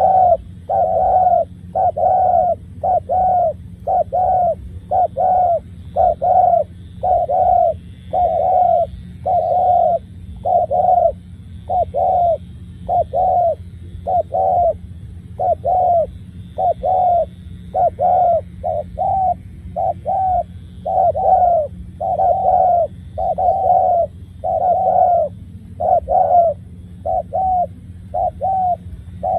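Spotted dove cooing, its coo notes repeated about two a second without a break, over a steady low hum.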